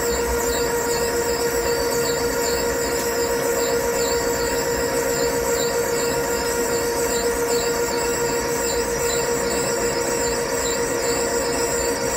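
CNC machine cutting metal: a loud, steady whine made of several steady pitches, with high tones that waver in a repeating pattern.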